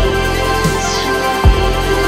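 Electronic background music: sustained synth tones over deep bass hits, one at the start and another about a second and a half in, with a falling high sweep between them.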